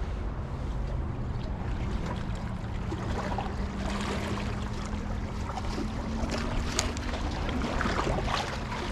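Small waves lapping and splashing against jetty boulders, with wind rumbling on the microphone and scattered crackles of water among the rocks. A faint steady low hum comes in about three seconds in.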